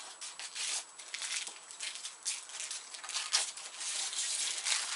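Plastic wrapping being pulled off a new computer mouse, crinkling and rustling in irregular bursts.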